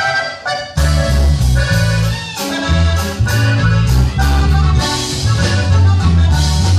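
Norteño band playing live: a button accordion plays a short run alone, then bass and drums come in about a second in, and the accordion carries the melody over the bass line.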